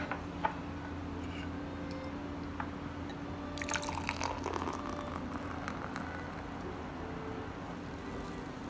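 Non-alcoholic beer being poured into a glass, the liquid splashing and filling it.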